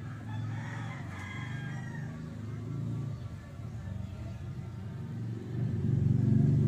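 A rooster crows once in the background for about the first two seconds, over a steady low engine rumble that grows louder near the end.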